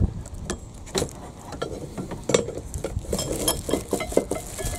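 Steel wheel-nut wrench and pry bar clinking and knocking against each other and metal as they are stowed: a string of irregular sharp metallic clinks.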